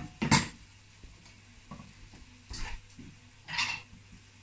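Kitchen clatter of utensils and dishes being handled: one clear clatter just after the start, then a few softer knocks and scrapes, over a steady low hum.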